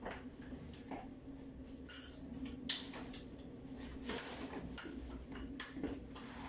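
Scattered light clicks and rustles of a camping tent's poles, clips and fabric being handled during pitching, with one sharper click a little under three seconds in, over a steady low hum.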